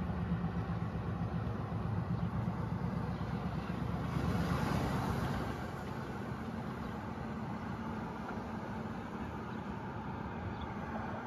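Steady background traffic noise with a low hum underneath, swelling briefly about four to five seconds in.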